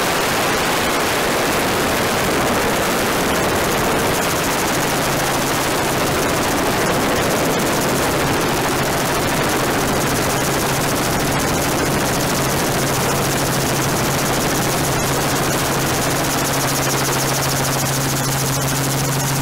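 Helicopter in flight, a steady drone of rotor and turbine with a constant low hum and rushing wind, heard from aboard the camera helicopter.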